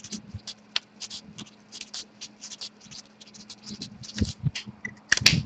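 Pen scratching on paper in quick, irregular strokes as a name is written onto a list, over a faint steady hum. A louder knock comes just before the end.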